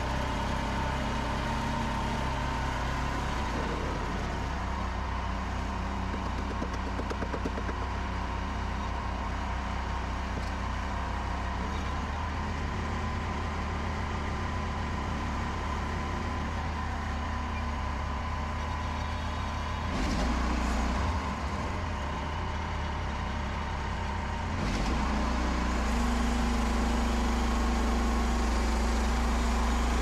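Frontier OS27 portable bandsaw mill running, its petrol engine driving the band blade through a spruce log. The sound changes briefly about 20 seconds in and gets louder about 25 seconds in.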